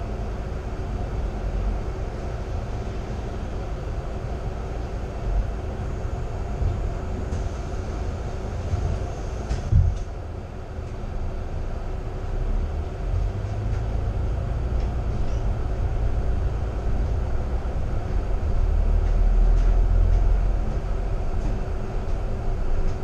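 Interior of a city double-decker bus on the move: a steady engine and road rumble with a faint constant hum and cabin rattles. There is a sharp knock about ten seconds in, and the low rumble grows louder near the end.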